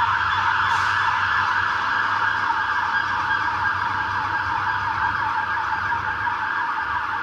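UK fire engine siren sweeping rapidly up and down in pitch, the sweeps overlapping and smearing together, over a steady low engine rumble.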